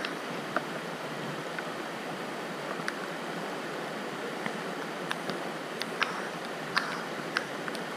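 Gold panning in a creek: gravel and small stones clicking irregularly against green plastic gold pans as they are swirled and washed, over the steady hiss of flowing creek water.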